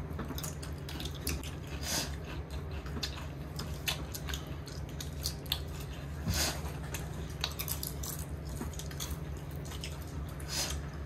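People eating: chewing and mouth smacks with scattered sharp clicks, a few louder ones, over a steady low hum.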